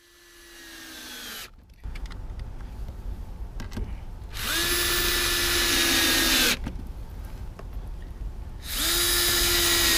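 Cordless drill running at a steady speed in two bursts of about two seconds each, drilling into a metal mounting plate. The first burst comes about halfway through and the second near the end.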